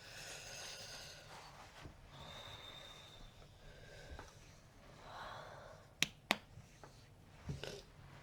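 A person breathing audibly, with two short, sharp hiccups about six seconds in, a third of a second apart, and a smaller one near the end.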